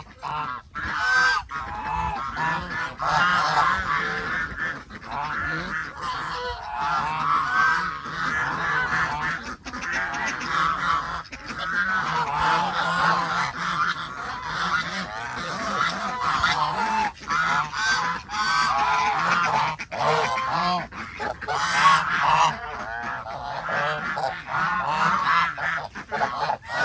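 A flock of domestic geese honking continuously, many overlapping calls at once.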